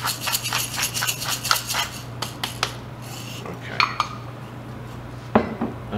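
Hand pepper mill grinding black peppercorns, a fast, dense run of gritty clicks that stops about two seconds in. A few light clinks follow, and a sharp knock near the end.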